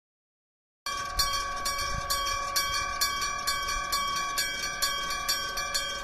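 Japanese level-crossing electric bell (denshō type) ringing its warning with repeated strikes, about two a second, that leave a steady metallic ring. It starts suddenly about a second in.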